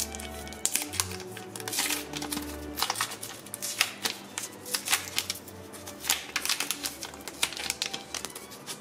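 Clear plastic protective film being peeled off the glass back of a Huawei P30 Pro, crackling in many quick irregular snaps, over quiet background music.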